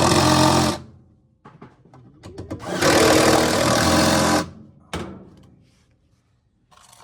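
Power drill driving the washer gear case's mounting screws, running in two spurts of about two seconds each: one stops under a second in, and the second runs from about three to four and a half seconds in.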